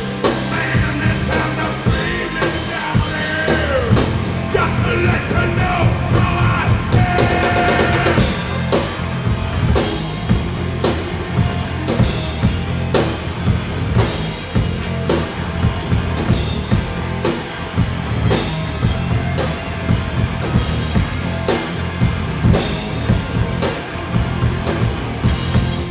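Rock music: a drum kit keeps a steady beat over a low bass, with a voice singing over it for the first several seconds.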